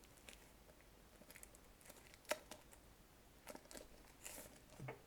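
Faint handling noises of a small plastic gadget and its cardboard box: scattered light clicks and taps, the sharpest a little past two seconds in, and a brief rustle about four seconds in.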